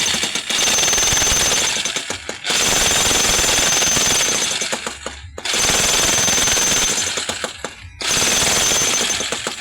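Hitachi jackhammer running on test, hammering rapidly in four long bursts with brief stops between as it is switched on and off. The sound is smooth, with a strong punch and plenty of power, a sign of a tool in good working order.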